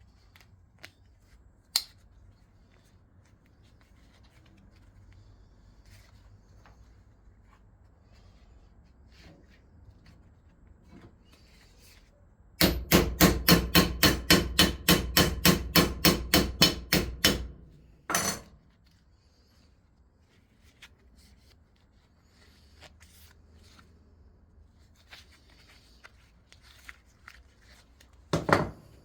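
A hammer striking metal in a fast, even run of about twenty ringing blows, around four a second, lasting about five seconds, followed by one more blow. Before and after the run there are only faint, scattered small knocks.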